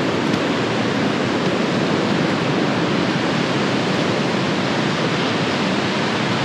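Steady, even rushing noise with no breaks or surges.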